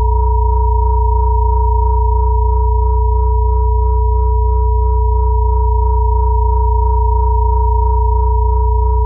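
Steady electronic sine tones held without change: a strong low hum near 60 Hz, a tone near 432 Hz and a higher one near 963 Hz, layered as a meditation frequency track.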